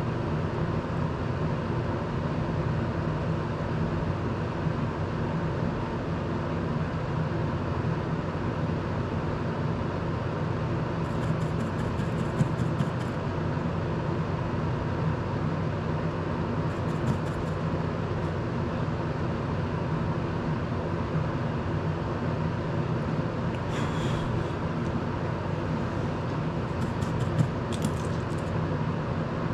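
Desk circulator fan running steadily with a low hum, used to blow solder fumes away from the workbench. A few short runs of light clicking from small tools and parts being handled come and go over it.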